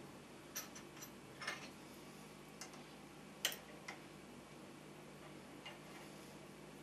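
Scattered faint clicks and taps of steel parts being handled and fitted together on a lathe tool rest assembly, about eight in all, with one sharper click about three and a half seconds in.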